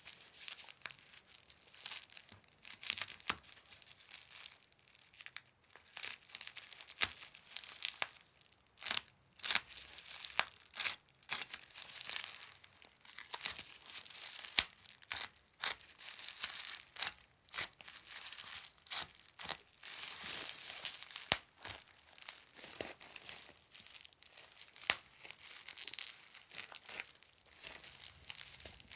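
Packaging around a parcel of books being crinkled and torn open by hand: irregular crackles and rips.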